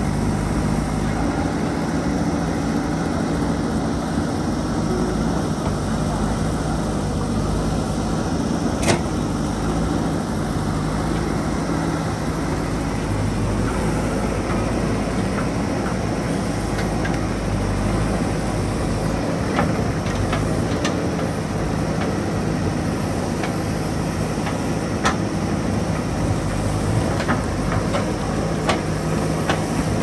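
Diesel engine of a JCB 3DX backhoe loader running steadily while the backhoe arm digs, with occasional sharp clanks of the bucket against rock, several close together near the end.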